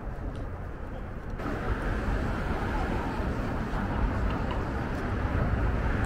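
Steady city street noise with a low traffic hum, growing fuller and louder about a second and a half in.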